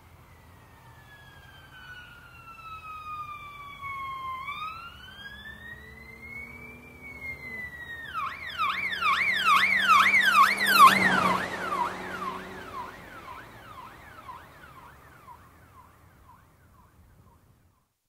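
Police car siren passing by: a slow wail that falls and rises again, switching about eight seconds in to a fast yelp. It grows loudest a few seconds after the switch as the car goes past, then fades away.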